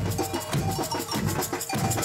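Carnival comparsa drum troupe playing live: fast, steady stick strokes on snare drums over repeated deep bass drum hits.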